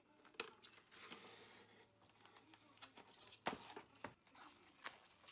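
Faint crinkling and rustling of plastic cling film being handled around a bowl, with a few sharp taps and clicks.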